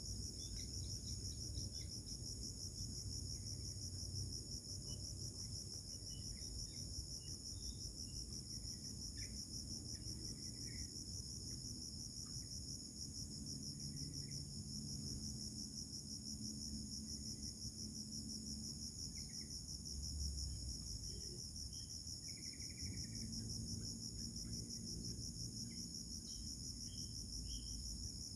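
Steady, high-pitched chorus of chirping insects with a fast, even pulse, with a few faint short chirps and a low rumble underneath.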